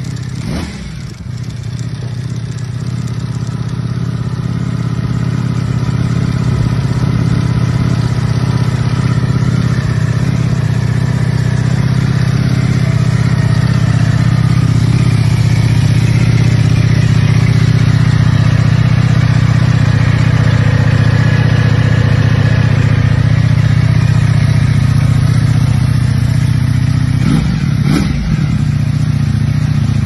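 Ducati V4 superbike engine idling steadily, growing a little louder over the first few seconds, with a short knock about two seconds before the end.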